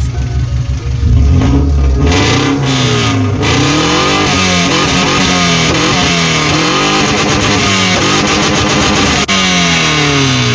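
Subaru Outback's flat-four engine, its muffler cut off and its air filter removed, running with a low pulsing idle and then revved hard, its pitch rising and falling over and over. The sound cuts off suddenly near the end.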